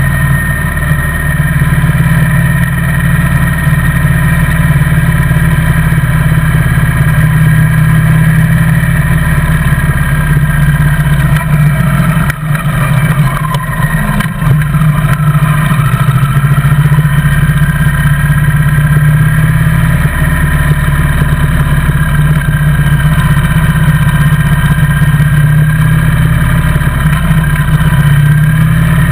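Motorcycle engine running steadily while riding at road speed, easing off briefly twice near the middle before pulling steadily again.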